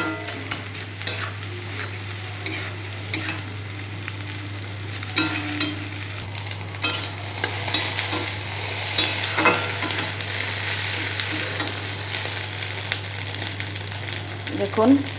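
Scrambled egg with onion frying in a metal kadai, sizzling steadily while a spatula stirs and scrapes across the pan with scattered clicks. A low steady hum sits underneath.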